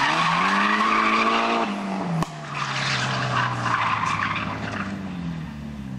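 Mitsubishi Lancer saloon's engine revving hard, then easing off, with a sharp knock about two seconds in. Its tyres then squeal and skid as the car slides sideways on concrete, the engine running on at lower revs.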